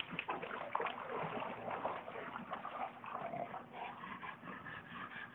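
English bulldogs making short, irregular dog noises while tugging a garden hose between their teeth.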